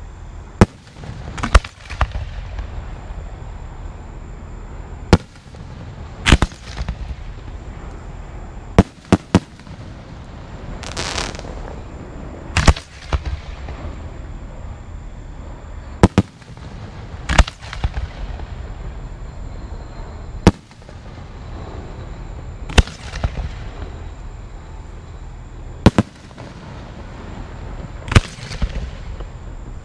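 Aerial fireworks shells bursting in a show: about fifteen sharp booms a second to a few seconds apart, some in quick pairs, several trailing a short echo.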